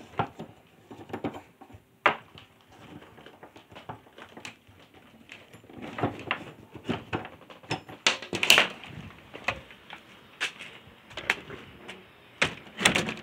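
Handling noise of a phone being carried and moved about, with irregular knocks and rustles; the loudest knocks come about two-thirds of the way in and near the end.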